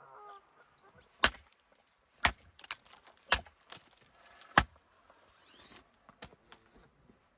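A series of sharp knocks, five loud ones at uneven intervals of about a second, with lighter clicks between them.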